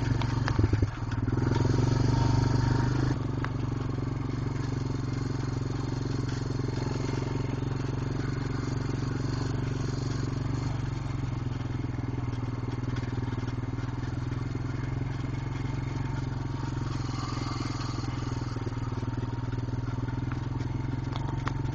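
ATV engine running steadily at low road speed, about 7 miles an hour. It is a little louder for a couple of seconds near the start, then settles into an even drone.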